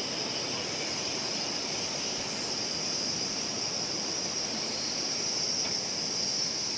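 River water rushing steadily below a footbridge, with a continuous high-pitched drone of insects over it.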